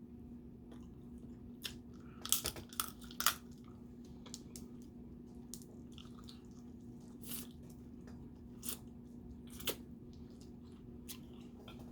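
Close-miked eating of snow crab legs and crawfish: scattered sharp cracks and crunches of shell being broken, with a quick cluster of several about two to three seconds in and single cracks later, and chewing in between.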